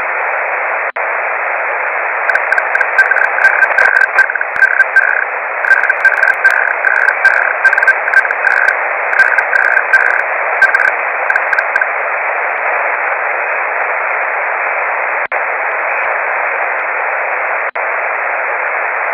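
Amateur radio receiver static, a loud, steady hiss cut to a narrow voice-like bandwidth, with a few brief dropouts. For the first half or so, a Morse code tone is keyed over it in short and long elements, with faint crackles.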